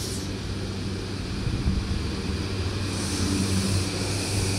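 JR E235-1000 series electric train starting to pull out of the station, its traction motors giving a steady low hum, with a higher-pitched sound joining about three seconds in as it picks up speed.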